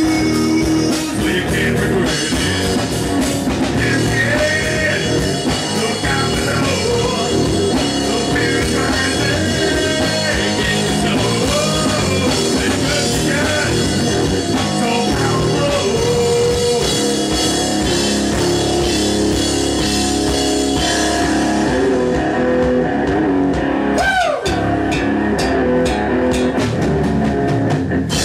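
Punk rock band playing live: electric guitar, bass guitar and drum kit, loud and driving. Near the end the cymbals thin out for a couple of seconds, then a sharp falling glide leads the full band back in.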